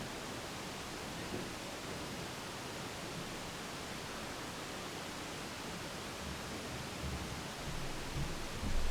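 Wooden floor boards giving a few low thuds and faint creaks underfoot about seven seconds in and near the end, over a steady hiss. A creaking floor rail is a sign that it bends down until it touches the concrete floor slab beneath.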